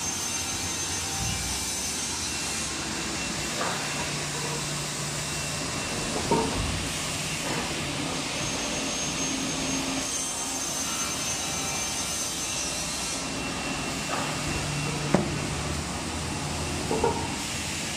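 SOSN DZ-3300 computer beam saw running steadily with its dust extraction, a deeper hum coming in twice for a few seconds. Several sharp knocks of wooden boards being pushed and stacked on the machine table.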